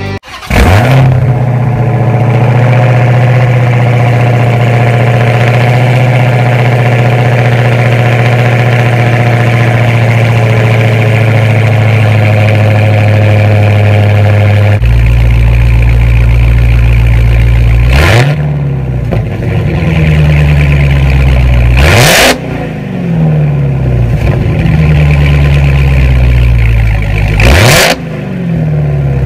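Dodge Challenger SRT Hellcat's supercharged 6.2 L HEMI V8, its exhaust fitted with Dynomax 24250 in place of the stock mid mufflers, idling loudly, its note deepening about halfway through, then revved sharply three times near the end.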